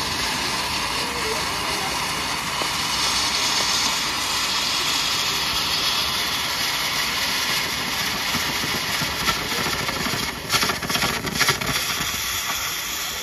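Stage cold-spark fountains hissing steadily as they spray sparks. A quick flurry of sharp cracks comes about ten and a half seconds in.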